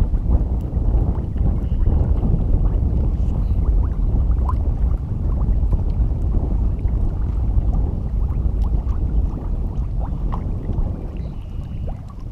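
Wind buffeting the microphone: a loud, steady, unpitched low rumble, with a few faint clicks.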